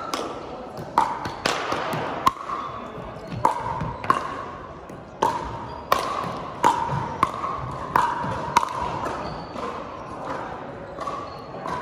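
Pickleball rally: a hard plastic pickleball struck by paddles and bouncing on the court, a run of sharp hollow pocks about every half second to second, each ringing briefly in a gym's echo. The hits thin out near the end.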